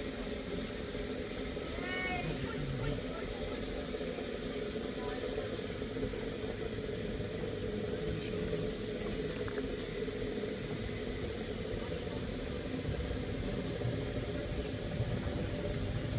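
Steam locomotive Mount Lyell No. 3 standing in steam on a turntable as it is pushed round by hand: a steady hiss of escaping steam with a low steady hum under it. A brief high-pitched squeak about two seconds in.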